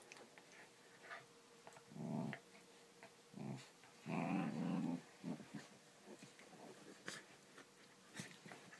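Pembroke Welsh corgi growling in play while biting and tugging at a large plush orca toy: two short growls, then a longer one lasting about a second near the middle.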